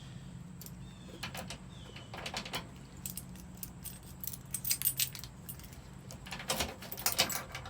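A ring of keys jangling and clinking in short bursts, three clusters of rattles, as keys are tried in the ignition lock of a 1965 Chevy truck.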